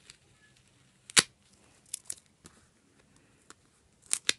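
Fingers handling stickers on a paper planner page: a few short, sharp clicks and taps, the loudest about a second in and a quick pair near the end.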